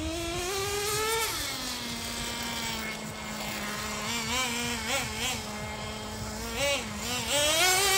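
Nitro RC truck's small two-stroke glow engine revving: the pitch climbs for about a second, drops back to a steady drone with a few quick throttle blips, then climbs again near the end.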